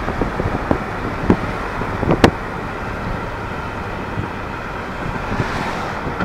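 Car driving along a street with a window open: steady road and wind noise, with a few short knocks and bumps in the first couple of seconds, the sharpest a little over two seconds in.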